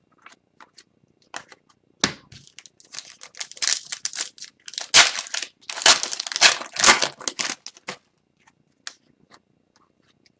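Crinkling and tearing of a foil trading-card pack wrapper being ripped open and crumpled by hand, in a dense run of crackles for several seconds, then a few small clicks.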